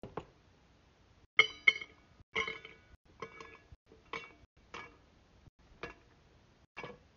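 Pieces of ice dropped one at a time into a hard cup, each landing with a short ringing clink. There are about nine clinks, spaced unevenly, and the first few are the loudest.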